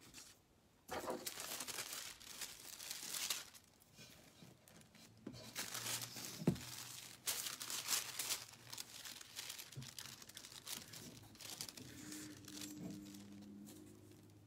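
Paper crinkling and rustling in several stretches as sheets of transfer paper and printed lettering are handled, with one sharp click about halfway through.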